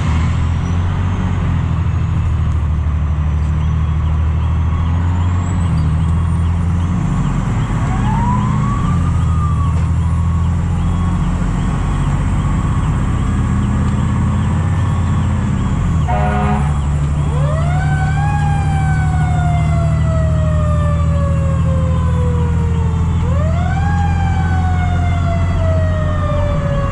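Fire truck under way with its engine running, heard from inside the cab, and a siren wailing. In the second half the siren twice rises quickly and then falls slowly in pitch, after a short rapid pulsing burst. Fainter rising siren tones come before that.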